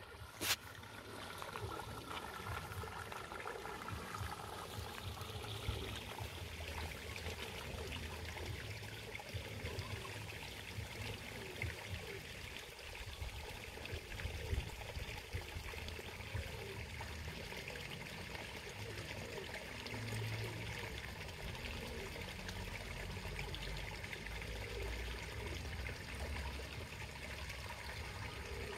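Water trickling steadily in a garden pond, with a low rumble underneath and a sharp click right at the start.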